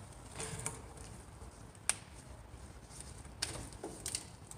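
A few sharp clicks and light rustling from plastic trailer-wiring connectors being handled and pulled apart: one sharp click just before the middle, another about three quarters of the way through, and a couple of smaller clicks near the end.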